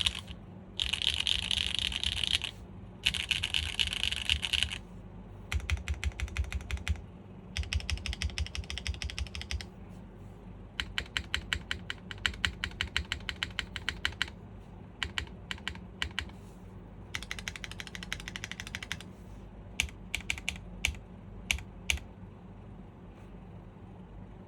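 Typing on a TGR x GAF 910 PC mechanical keyboard with stock SWK Jieum V2 switches in a top-mounted PP plate and GMK keycaps. Fast dense runs of keystrokes come first, then runs of separate clicks, a few single keypresses around 20 seconds in, and no keystrokes in the last couple of seconds.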